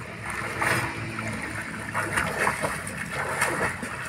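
Water splashing and sloshing around a swimmer's strokes, coming in irregular bursts.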